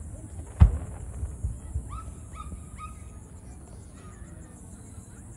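Fireworks at a display: a shell bursts with one deep boom about half a second in, followed by a few fainter pops. About two seconds in come four short, high-pitched calls in quick succession.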